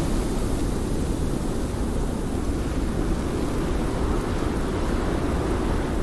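Blizzard wind blowing steadily, a deep, even noise with no distinct gusts.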